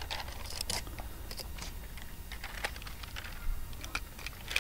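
Scattered light clicks and crackles of hands handling a strip of thick, sticky rubbery Flex Tape and a pair of scissors, the tape catching and peeling off the fingers.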